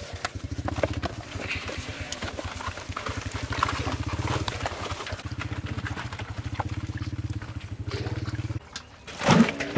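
A small engine running steadily with a rapid low pulsing, cutting off suddenly about a second before the end, over faint rubbing and clicking as hands scrub salted beef tripe in an aluminium basin.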